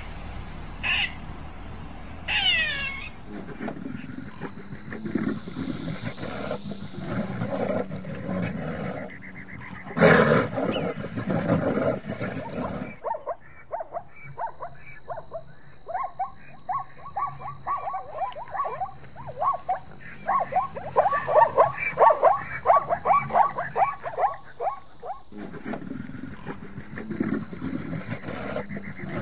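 A big cat growling, with a loud roar about ten seconds in, followed by a long run of rapid, repeated short calls and then more low growling.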